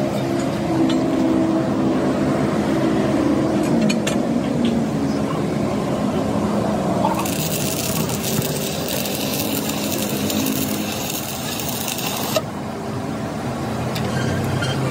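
An engine running steadily with a slightly wavering pitch, and a loud hiss that starts and stops abruptly from about seven to twelve seconds in.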